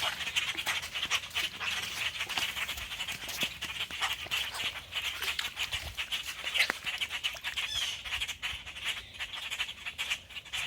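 A grackle tangled in fishing line calling in distress, a rapid run of short squawks.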